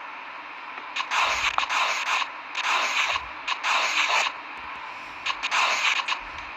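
Writing on paper: several scratchy strokes, each under a second long, over a steady low hiss.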